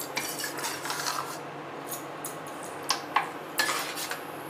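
Spatula stirring thick gravy in a stainless steel pan, with several sharp taps and scrapes against the pan over a faint steady hiss.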